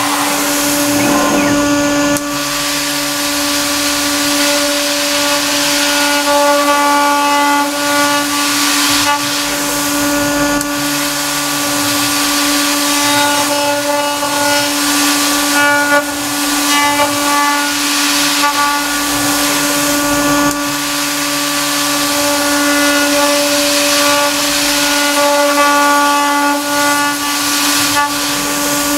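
CNC router spindle running a 6 mm single-flute end mill through aluminium plate: a steady whine over a hiss from the spirit-and-air mist cooling. A lower hum from the axis drives shifts every few seconds as the cutter moves along its path.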